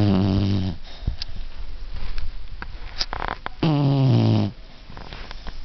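Beagle snoring: two long, rasping, pitched snores about three and a half seconds apart, each sagging slightly in pitch as it ends, with a short noisy breath just before the second.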